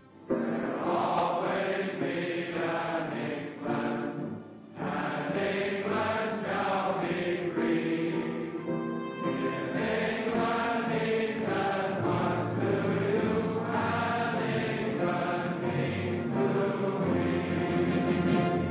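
Film-score music: a choir singing sustained notes over an orchestra, with a brief hush about four and a half seconds in.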